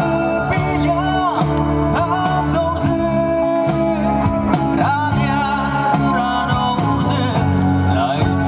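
A man singing a song into a microphone with an amplified band accompaniment, electric guitar among the instruments, at a steady loud level.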